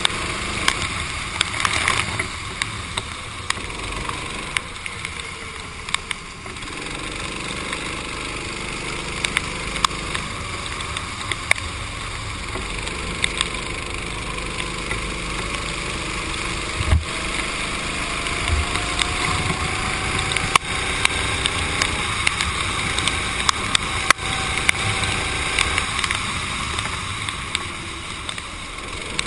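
Onboard sound of a racing kart on a wet track, heard through a GoPro's waterproof housing: a steady hiss of spray and wind over a faint, muffled engine whose pitch rises and falls, with many sharp ticks of water drops striking the case.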